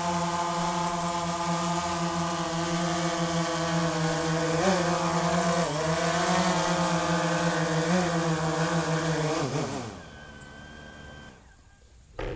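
DJI Phantom 3 Professional quadcopter hovering low, its four propellers giving a steady buzzing hum that wavers in pitch a few times as the motors adjust. It descends and lands: the pitch slides down and the hum dies away as the motors spin down. A short knock comes near the end.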